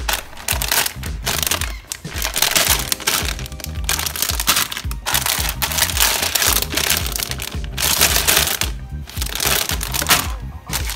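Cellophane bags of plastic kit runners crinkling and crackling as they are handled and lifted out of a cardboard box, in loud irregular stretches with brief pauses, over background music.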